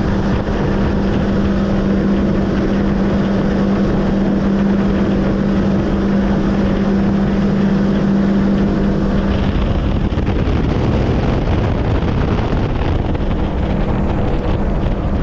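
Mercury outboard motor running a boat at speed, with a steady engine hum over the rush of the wake and wind on the microphone. About nine seconds in the hum fades, leaving mostly the rush of wind and water.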